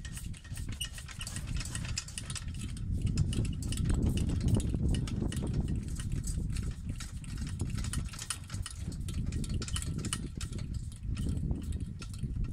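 Hand-wound screw jack of a ride-on mower lift being cranked, lifting the mower: rapid, irregular metallic clicks from the threaded rod and handle over a steady low rumble.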